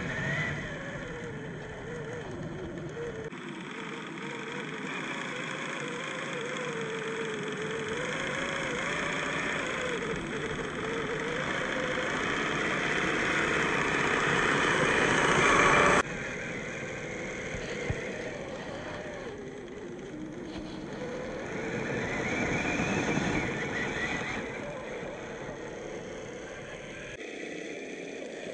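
Brushed 540 27-turn electric motor and gears of a 1/10 scale RC crawler whining, the pitch wavering up and down with the throttle. It grows louder and cuts off abruptly about halfway through, then swells again a few seconds later.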